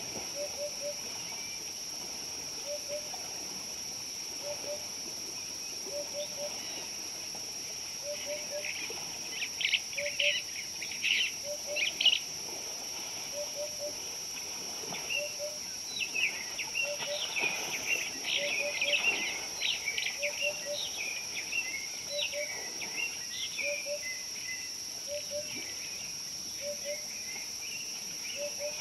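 Natural ambience of birds and insects: a steady high insect drone, a short low double or triple call repeating every second or so, and bursts of bird chattering and chirping, loudest about twelve seconds in and again from about sixteen to twenty-four seconds.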